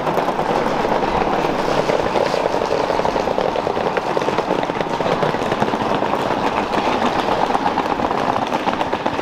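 Wheels of a hard-shell rolling suitcase clattering continuously over brick paving blocks, a fast, even rattle.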